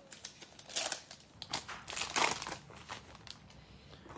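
Plastic wrapper of a basketball trading-card value pack crinkling as it is peeled open and the cards are pulled out, in uneven bursts, loudest about two seconds in.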